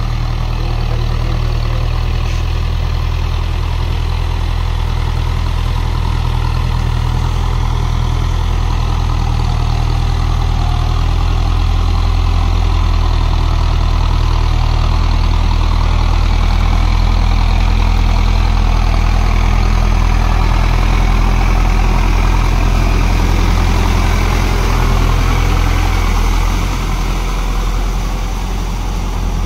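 Tractor's diesel engine running steadily as it drives a rotavator through flooded paddy mud, swelling a little midway and easing slightly near the end.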